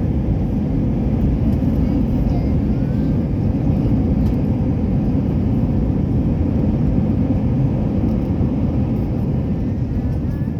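Steady low rumble of a jet airliner heard from inside the passenger cabin: engine and airflow noise, easing slightly near the end.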